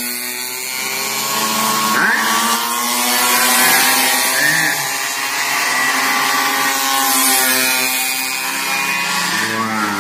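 Several pocket bike engines buzzing at high revs at once, their pitch rising and falling as the bikes accelerate and back off.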